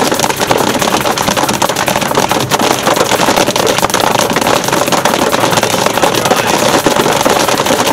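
Hailstones pelting a moving car's roof, windscreen and mirrors in a loud, dense, unbroken clatter of impacts. The din is too loud to hold a conversation in the car without shouting.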